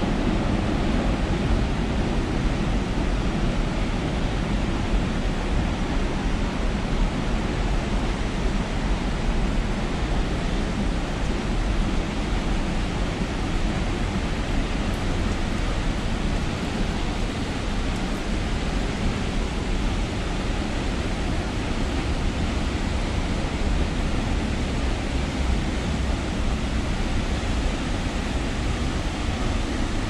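Steady, unbroken rushing of falling water from a nearby waterfall or stream, heaviest in the low end.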